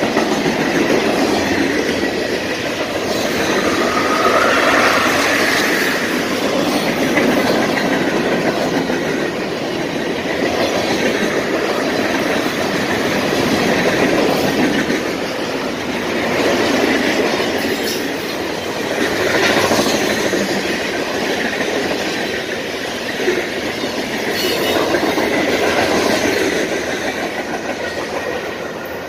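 CSX mixed freight train's tank cars and covered hoppers rolling past close by, wheels running over the rails. The noise swells every few seconds as each car goes by, then drops off near the end as the last car passes.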